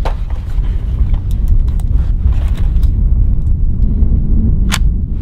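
Low, gusting rumble of wind buffeting the microphone, with small handling clicks and one sharp click near the end as a scoped rifle is handled.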